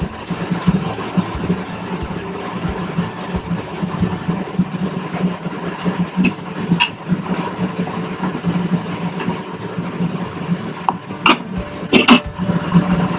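Curry simmering in a kadai on a lit gas stove under a steady low hum, with two sharp knocks near the end.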